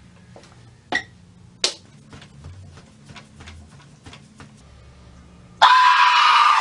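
Light clicking of a laptop keyboard being typed on, with a couple of sharper clicks. About a second before the end, a man suddenly lets out a loud, high-pitched yell.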